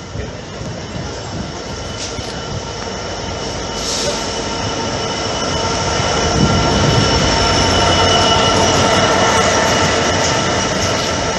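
Class 66 diesel locomotive, with its two-stroke V12 engine, passing close alongside a station platform. A steady rumble carries several held tones and builds to its loudest as the locomotive draws level about six seconds in, then eases off a little near the end.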